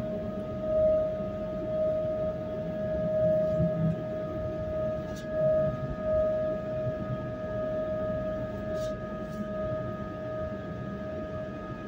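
Inside a Koleje Śląskie EN76 (PESA Elf) electric multiple unit under way: a steady high whine that holds one pitch, over the low rumble of the wheels on the track. A few faint ticks sound about halfway through and again near the end.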